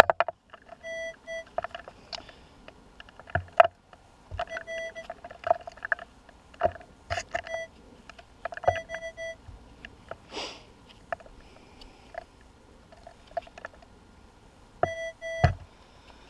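Metal detector giving short, repeated beeping target tones in brief bursts as it is swept over the ground, with scattered clicks and knocks in between.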